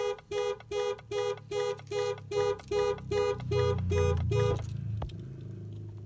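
2015 Range Rover SE's alarm sounding, heard from inside the cabin: a fast run of identical pitched beeps, about two and a half a second, that cuts off suddenly about four and a half seconds in. A low rumble from the engine starting swells under the last few beeps.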